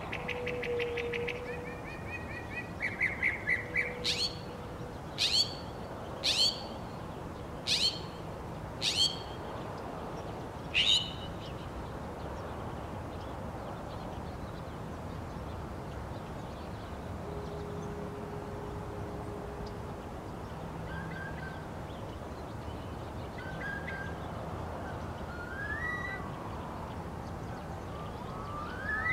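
Northern mockingbird singing: a fast run of rapidly repeated notes, then six loud, sharp, falling calls spaced a second or more apart. For the second half only a few faint chirps sound over steady background noise.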